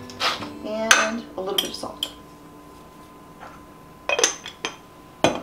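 A wooden pepper mill grinding black pepper with a couple of scratchy turns, then a spoon and small ceramic dishes clinking, with a few sharp clinks near the end.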